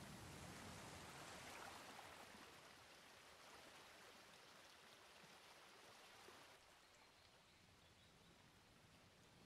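Near silence: a faint, even hiss that drops a little quieter about two-thirds of the way through.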